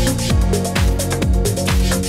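Background electronic dance music with a steady kick-drum beat, about two beats a second, under synth notes and hi-hats.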